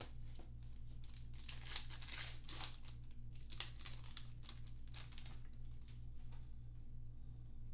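Plastic trading-card pack wrapper being torn open and crinkled, with crackly rustling that is loudest through the middle seconds.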